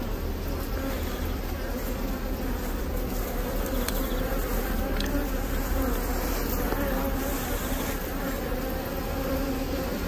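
Honeybees of a queenless colony buzzing steadily in a dense hum as their comb frames are lifted out of the open hive.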